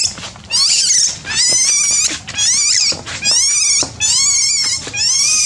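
Baby monkey crying out in about six high-pitched cries, each about half a second long with a wavering pitch.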